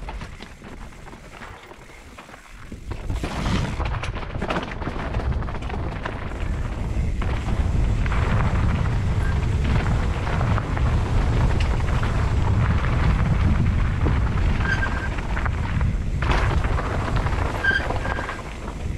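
Mountain bike riding down a gravel singletrack: low wind rumble on the camera's microphone, with tyres crunching over gravel and the bike knocking and rattling over bumps. It is quieter for the first few seconds and gets louder about three seconds in as the bike picks up speed.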